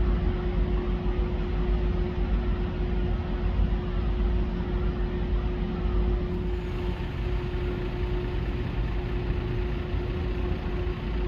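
A large ferry's machinery runs with a steady low rumble and one constant mid-pitched hum over it.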